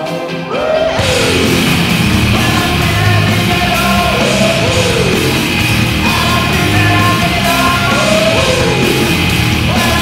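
Hard rock music with yelled vocals, jumping to full loudness about a second in.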